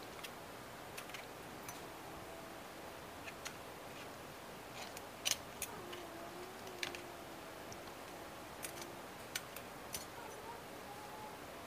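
Metal spoon stirring a thick grated-santol and coconut-milk mixture in a metal pan, with quiet, irregular clinks and scrapes against the pan. The sharpest clink comes about five seconds in.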